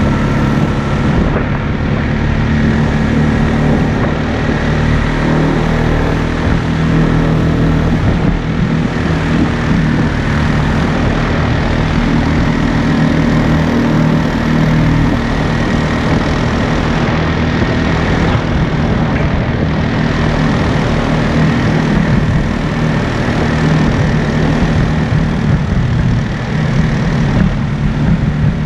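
ATV engine running steadily under way, its pitch wavering slightly with the throttle, over a steady rush of wind noise.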